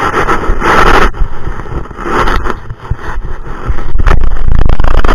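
Loud, rough rumbling and scraping noise on an action camera's microphone as the camera is bumped and shifted on the sand, growing heavier and steadier about four seconds in.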